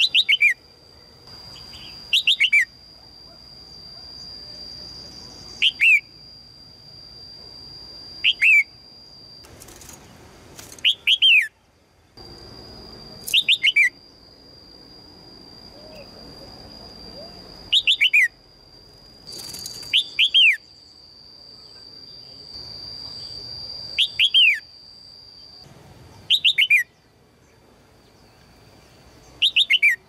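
Red-whiskered bulbul giving sharp, downward-sweeping chirps, mostly in pairs, every two to four seconds. A steady, thin high tone runs behind them and breaks off twice. The uploader presents these chirps as a female calling for a mate.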